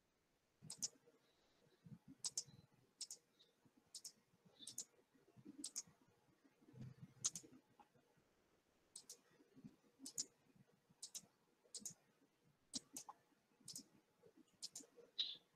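Faint computer mouse clicks, short and irregular at roughly one a second, some in quick pairs, as dropdown menu options are picked on screen.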